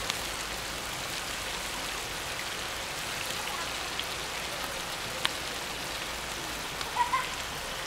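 Stuffed hardtail scad (ikan cencaru) frying in hot oil: a steady sizzle with a few small clicks and pops.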